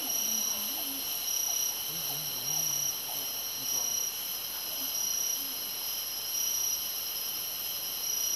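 Rainforest insect chorus: several steady high-pitched drones layered together, with one high note pulsing on and off about once a second.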